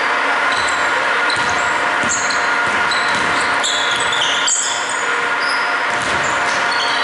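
Basketball game on a hardwood court: sneakers squeaking repeatedly and a basketball bouncing, over a steady hum in the hall. The squeaks come thickest around the shot about halfway in.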